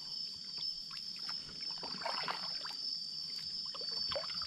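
Kayak paddle strokes in a river: the blades dip and water splashes and drips, with one stroke about two seconds in and another near the end. A steady high drone of night insects continues underneath.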